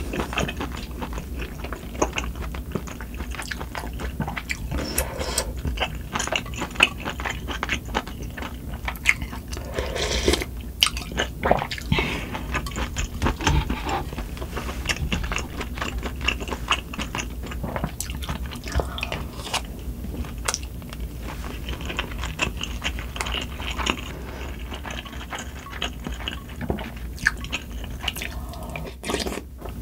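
Close-miked chewing and slurping of spicy sundae gukbap (blood-sausage and pork soup with rice) eaten by the spoonful: a dense run of small wet mouth clicks. A low steady hum from wind and rain runs underneath.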